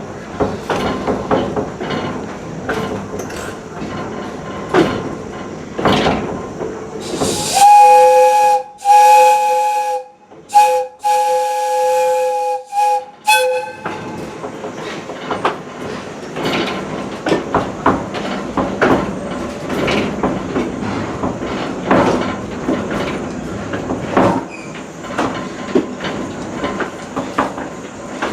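A railroad coach rolling along with steady rattling and clicking over the rail joints. About a third of the way in, the chime steam whistle of Mikado steam locomotive No. 40 blows the grade-crossing signal: long, long, short, long, then a brief final toot.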